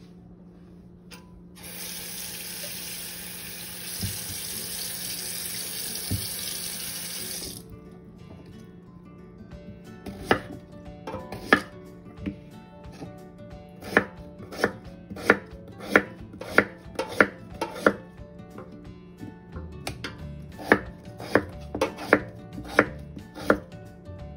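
A kitchen tap runs into a stainless steel sink for about six seconds, then stops. Then a chef's knife chops a Korean radish (mu) into chunks on a wooden cutting board, with a run of sharp, irregular knocks of the blade hitting the board and a short pause partway through.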